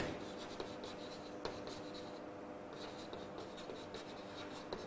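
Faint chalk scratching on a blackboard as words are written, a run of short strokes with a sharper tap about a second and a half in and another near the end.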